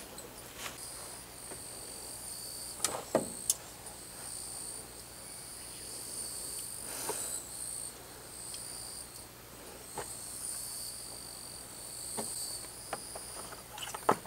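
Steady high-pitched insect chorus, with a few scattered light knocks and clicks through it.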